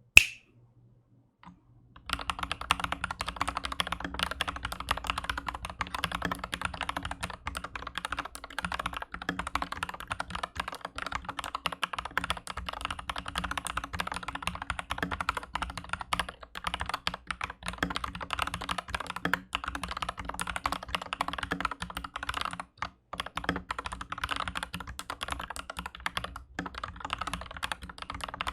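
Aflion AF82 mechanical keyboard with MM linear switches on a steel plate being typed on quickly and continuously, a dense run of clacking keystrokes starting about two seconds in, with a brief pause about three quarters of the way through. A short, sharp high sound is heard at the very start.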